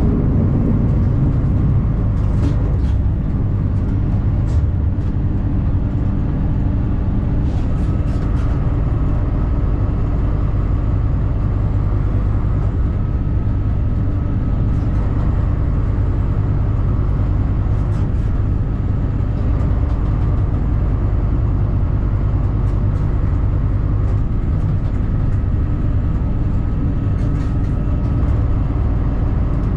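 VT654 diesel railcar running steadily along the line, a dense low engine and running drone heard from the cab, with scattered light clicks and a faint steady whine that comes in about a quarter of the way through.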